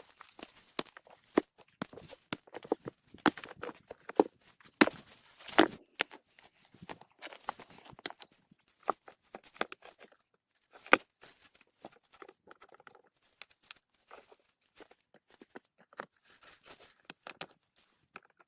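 Irregular scrapes, crunches and knocks of earth and stones being worked by hand, as soil is scraped level and packed against a dry-stone wall. The strokes come sporadically and thin out in the second half.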